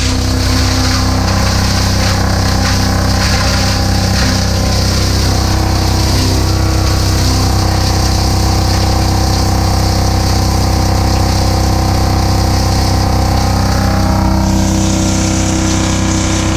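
ZERMA GSC 300-600 soundproofed granulator running steadily, its rotor knives grinding plastic pieces through a 6 mm screen with the integrated blower. It makes a steady machine hum, with irregular crackles in the first few seconds. The tone shifts about fourteen seconds in as a hiss rises.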